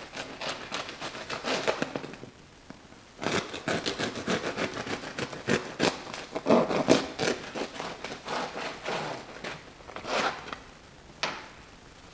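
Serrated bread knife sawing through the crisp crust of a freshly baked, still-hot loaf, making rapid crunching, crackling strokes. The strokes come in runs, with a short pause about two seconds in, as two slices are cut.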